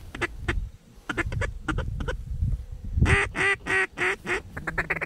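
Mallard-style duck quacks blown on hunters' duck calls to work circling ducks into the decoys: scattered single quacks, then a run of evenly spaced quacks about three seconds in, ending in a quick rapid chatter of short clucks.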